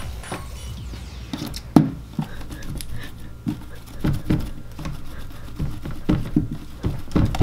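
Hands rolling and pressing Crazy Aaron's Angry Putty on a hard tabletop: a run of soft, irregular thumps and pats, about two a second, with one sharper tap about two seconds in.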